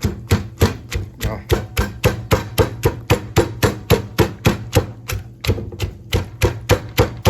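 Long beans being pounded with a pestle in a mortar for a Lao long bean salad: steady rhythmic strikes, about three to four a second.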